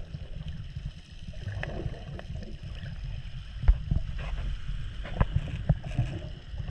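Muffled low rumble of moving water picked up by a camera held underwater, with a few sharp clicks or knocks: one loud click a little past halfway and three more near the end.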